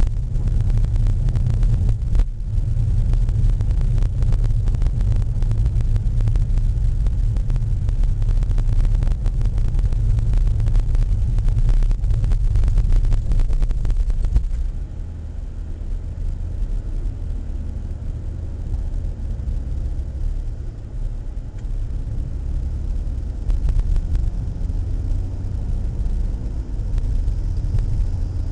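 Car driving over an unpaved forest track, heard from inside: a heavy low rumble from the tyres and body with a fast crackle of gravel. About halfway through the car reaches asphalt, and the sound turns quieter and smoother, a steady road rumble as it picks up speed.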